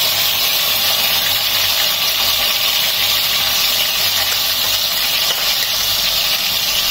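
Green chili, coriander and garlic paste sizzling in hot oil in a kadhai, a steady hiss.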